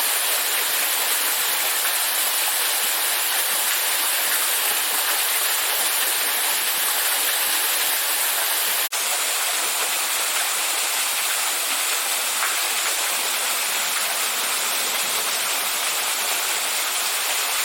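Steady rushing sound of falling water, with one very short break about nine seconds in.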